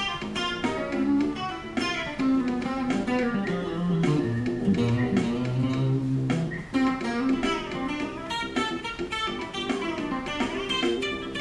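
Fender Stratocaster electric guitar improvising funk lines over a funk backing track that carries a moving bass line and regular drum hits.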